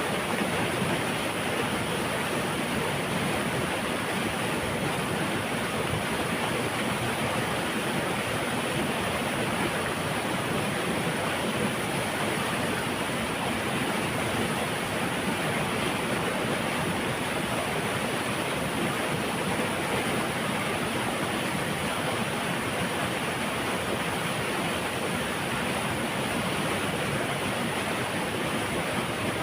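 Water rushing through a dam, a steady, unbroken roar with no let-up.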